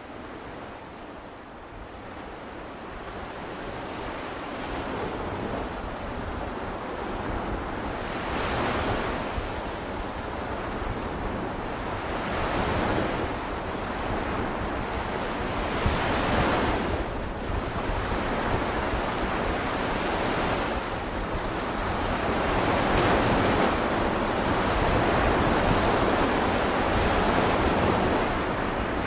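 Sea waves washing onto a shore, surging every four seconds or so, with wind rumbling on the microphone; the sound grows louder over the first few seconds.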